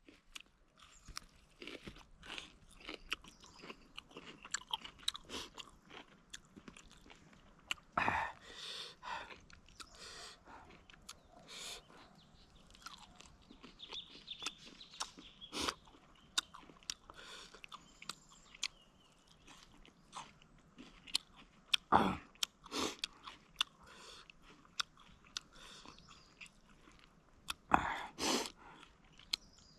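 A person eating spicy tandoori chicken close to the microphone: irregular chewing and biting with crunchy crackles, and a few louder bites about 8, 22 and 28 seconds in.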